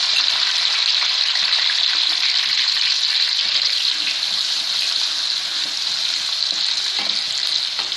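Chopped onion sizzling steadily in hot oil in a kadhai while being stirred with a wooden spatula: the onion frying as the first stage of a masala.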